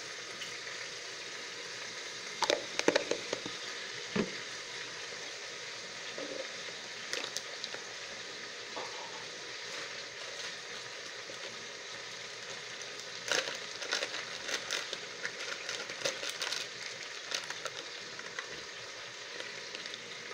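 Chicken pieces frying in oil and caramelised sugar in a pan: a steady sizzle with scattered crackles and pops, bunched in two spells, one a couple of seconds in and a longer one after about 13 seconds.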